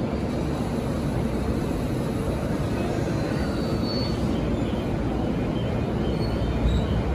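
JR East E233-1000 series electric commuter train starting to pull away from the platform: a steady rumble of motors and wheels, with a faint rising electric whine as it picks up speed.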